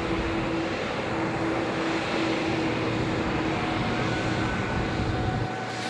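Boeing 777X's GE9X turbofan engines running at taxi power as the airliner taxis, a steady rumble with a held hum; the deepest part of the rumble drops away near the end.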